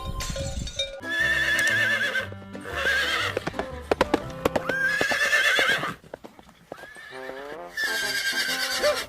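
Horse whinnying several times, each call a trembling, wavering neigh about a second long, with a few hoof clip-clops about four seconds in, over background music.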